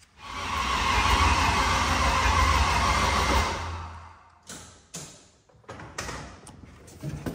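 LS V8 engine cranking over on its starter motor for about three and a half seconds without catching, then winding down, followed by a few sharp clicks. It fails to fire because, the owner suspects, fuel pressure is too low for the injectors to open.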